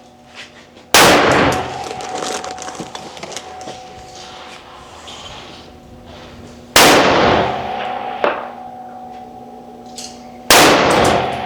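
Three AR-15 rifle shots, the first about a second in, the second about six seconds later and the third about four seconds after that. Each shot cracks sharply and trails off in a ringing echo.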